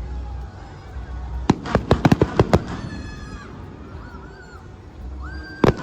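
Fireworks going off: a rapid string of sharp bangs and crackles about a second and a half in, lasting about a second, then another quick burst of bangs near the end.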